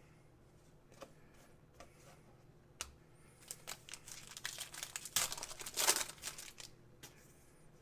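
A trading card pack wrapper being torn open and crinkled. A few light clicks come first, then a run of crinkling from about three seconds in, loudest around six seconds, that dies away shortly after.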